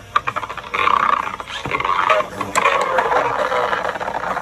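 Beyblade Burst spinning tops battling in a plastic stadium: a loud, rough whirring scrape of the spinning tops on the stadium floor, picking up about a second in, with sharp clacks as the tops strike each other and the stadium walls.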